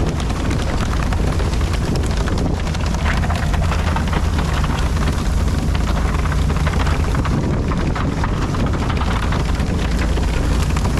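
Steady noise of a fishing boat under way: the engine running with a constant low rumble, mixed with wind on the microphone and the hiss of water spray hitting the sea.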